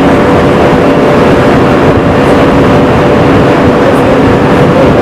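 Tractor engine running loud and steady, cutting in suddenly.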